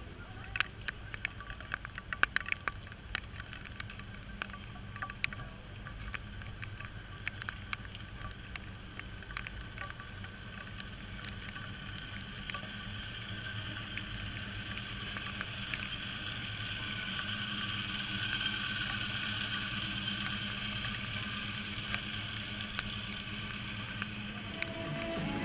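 A vehicle engine running steadily under outdoor noise. Sharp taps come thick during the first ten seconds, and a hiss builds gradually through the rest.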